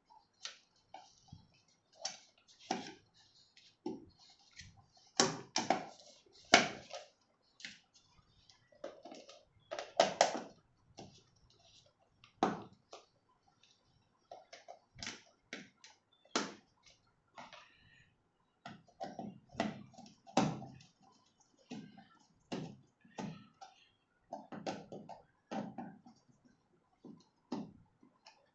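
Irregular clicks, taps and knocks of hard plastic and metal parts being handled while an electric kettle is put back together, some strokes louder than others.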